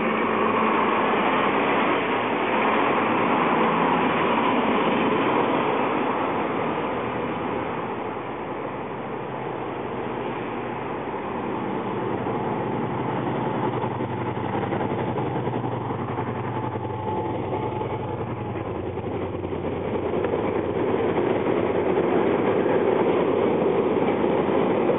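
Northern Ireland Railways locomotive 112, a General Motors diesel with a two-stroke V12 engine, running as it approaches and passes with its train. The sound grows louder again near the end as the wagons roll by close at hand.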